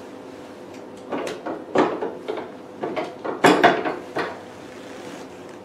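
Plastic handpieces of a hydrafacial beauty machine knocking and clicking as they are handled at the machine. There is a string of short knocks, the loudest about three and a half seconds in, over a faint steady hum.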